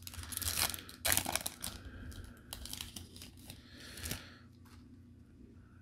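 Metallic foil wrapper of a Topps Chrome baseball card pack torn open by hand and crinkled, a run of short rips and crackles that dies away after about four seconds.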